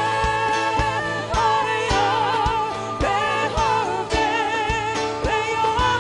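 A live worship band playing an upbeat song. Drums keep a steady beat under guitars, with singing over them.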